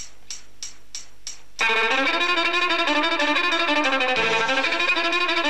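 Light, even ticks, about three a second, stop as a violin starts playing loudly about one and a half seconds in. The violin plays a quick run of changing notes.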